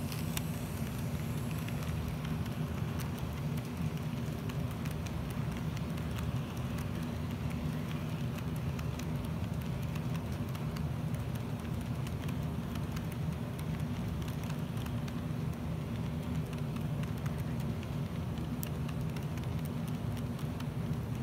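HO-scale model freight cars rolling steadily along the track, a continuous low rumble with scattered light clicks.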